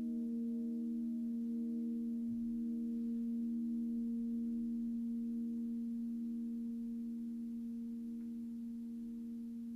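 Crystal singing bowls ringing on together as a sustained chord of pure tones, fading slowly, with a slow wavering pulse in the upper tones.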